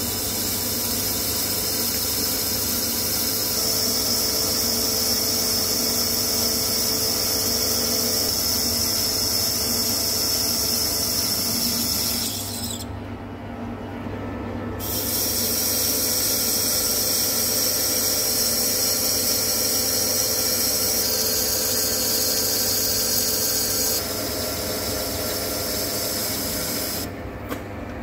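Centre lathe turning a high-tensile steel (38MnVS6) bar into a hydraulic cylinder piston, the carbide tool cutting with a steady high hiss as chips come off. The hiss drops away for a couple of seconds about halfway through, then carries on, changing character slightly toward the end.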